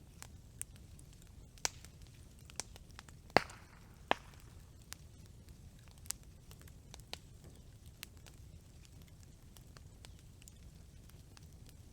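Wood campfire burning with a low rumble of flames and scattered sharp crackles and pops, the loudest a pair of pops a little over a third of the way in.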